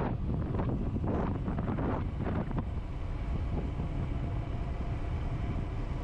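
Wind buffeting the microphone with a dense low rumble, gusting unevenly for the first couple of seconds and then steadier.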